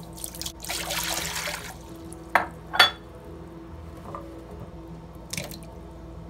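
Water poured into an enamelled pot, a rush lasting about a second, followed by a few short sharp plops and splashes as pieces of pumpkin drop into the water, the last near the end.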